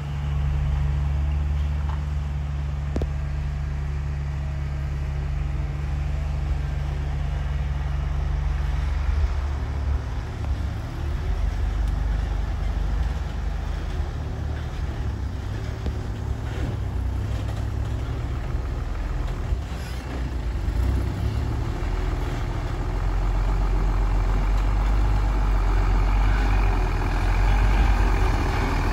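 Hino dump truck's diesel engine running under load as the truck drives along a rough dirt track, its note changing about nine seconds in and growing louder near the end as the truck comes close.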